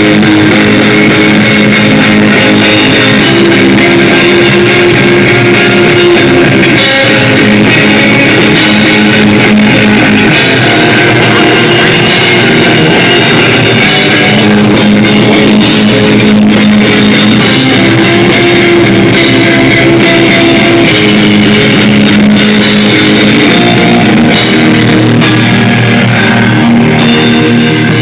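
A live heavy rock band playing loudly, with distorted electric guitars and a drum kit.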